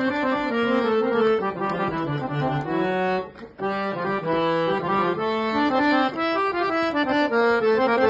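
Custom three-line, 9-scale-changer harmonium played by hand, with its bellows pumped: reed notes and chords held and changing in a tune. The sound breaks off briefly about three and a half seconds in, then carries on.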